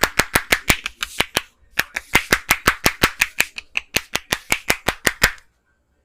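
Rapid, rhythmic hand slaps of a percussive massage, the barber's hands clapping against the head and neck about six or seven times a second. The slapping breaks off briefly about a second and a half in, then resumes and stops sharply about a second before the end.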